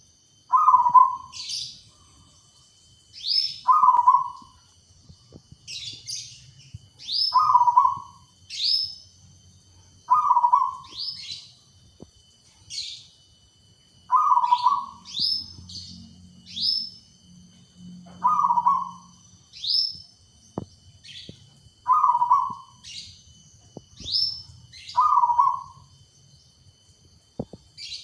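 Zebra dove (perkutut) cooing, one short low phrase repeated about every three to four seconds, eight times. Sharp high chirps from another bird fall between the coos.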